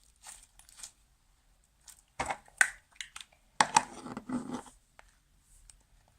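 Sticky homemade slime being squeezed and pulled apart by hand, giving short wet clicks and crackling pops in two louder clusters around the middle.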